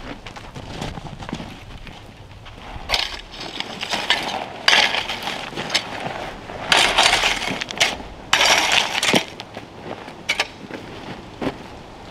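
Gravel being scraped and spread with a long-handled hand tool, in a series of irregular gritty strokes; the loudest come a little past the middle.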